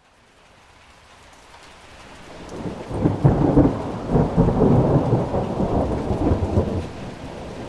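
Waterfall rushing with a deep, rumbling noise that fades in from silence over the first few seconds, swells in uneven surges in the middle and eases slightly near the end.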